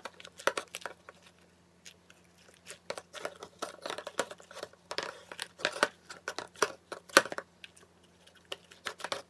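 Homemade crunchy slime being pressed and pulled to pick its leftovers off a container: a run of irregular sticky clicks and crackles, with a short lull about a second in.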